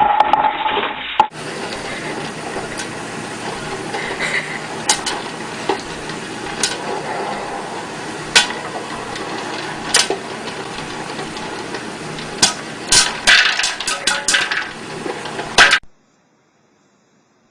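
Sharp clinks and clatters, like hard objects knocking together, over a steady background noise, with a quick run of them near the end.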